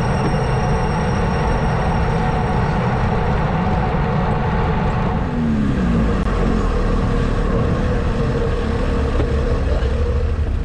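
Wind rumbling on the camera's microphone as a road bike rolls downhill, then road traffic at an intersection: cars running and passing close by, one with a brief falling pitch about five seconds in.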